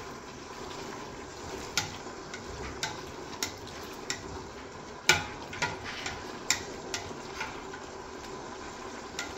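Sliced onions cooking in oil in a stainless steel stockpot, with a steady sizzle, while a spatula stirs them, knocking and scraping against the pot about once a second. The loudest knock comes about five seconds in.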